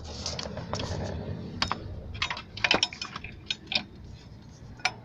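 Metal tools or parts clinking and clicking in an irregular series of sharp clicks, over a low steady hum.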